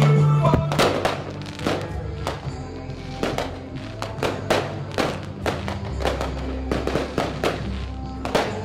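Fireworks going off in a rapid string of bangs, about two or three a second, over music with held notes.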